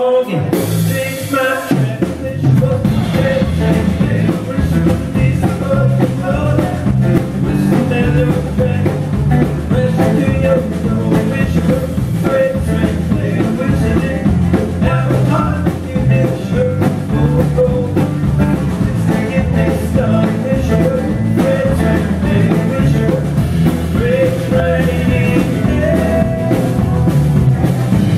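Live country-rock band playing: electric guitar, electric bass, acoustic guitar and drum kit. The full band comes in about two seconds in.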